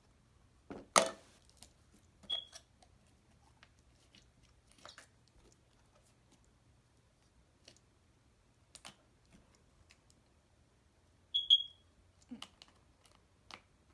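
Scattered clicks and taps of plastic slime containers being handled, the sharpest about a second in, with two short high-pitched chirps about nine seconds apart.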